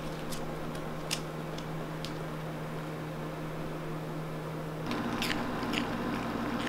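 Corgi licking and chewing: scattered faint wet clicks over a steady hum in a small room.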